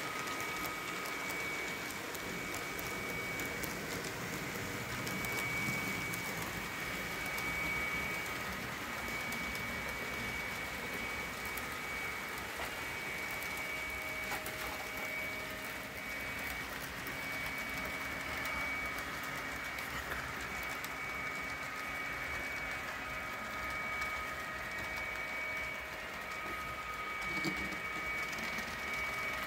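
Several model train locomotives running around a layout: a steady rolling clatter of metal wheels on track under a thin, steady high-pitched whine from their small electric motors.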